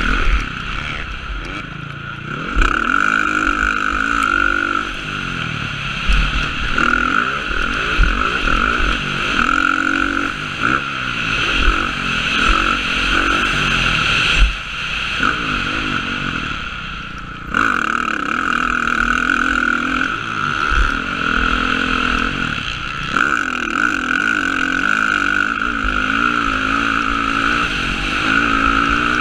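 Motocross dirt bike engine revving up and down through the gears as it is ridden hard, with wind rushing over the helmet-mounted camera. The engine note drops off briefly twice, about midway, then picks back up, with occasional low thumps.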